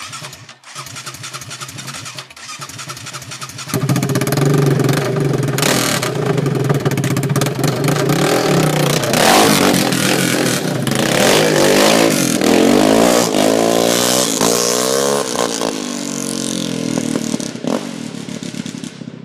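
Straight-piped single-cylinder four-stroke engine of a Yamaha Raptor 700R SE quad starting up and idling, then revved hard from about four seconds in as the quad spins in the gravel, its pitch rising and falling with the throttle. It gets quieter near the end as the quad rides away.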